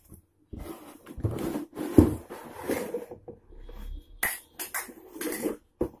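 A cardboard hair-dryer box being opened and the dryer pulled out: irregular rustling and scraping of cardboard and plastic, with a couple of sharp knocks near the end.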